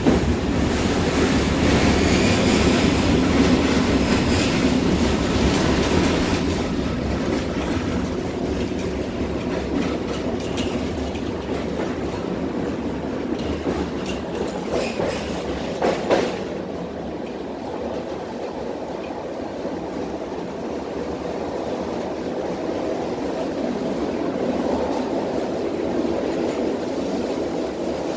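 Tatra T6B5 tram running between stops, heard from inside the passenger saloon: a steady rumble of wheels on the rails and running gear. It is loudest in the first few seconds, eases off, has one sharp knock about halfway through and builds a little again near the end.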